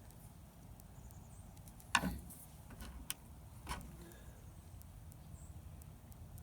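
Two sharp clicks from small watch parts being handled, about two seconds in and again a little later, the first the louder, with a few faint ticks over a low background rumble.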